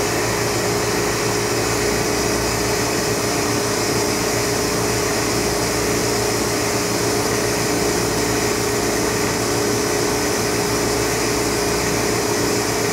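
Steady hum and whir of a running Oxford Plasmalab 133 ICP380 plasma etch system and its pumps and fans, with a few steady tones held through it.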